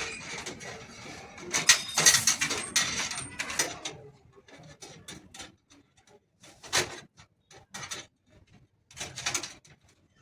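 Rustling and clattering handling noise with sharp clicks, busiest in the first four seconds, then scattered single clicks and knocks.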